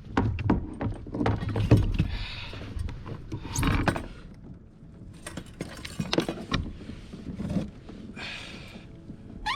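Irregular knocks, clicks and thuds against a kayak, broken by a few short bursts of rushing noise.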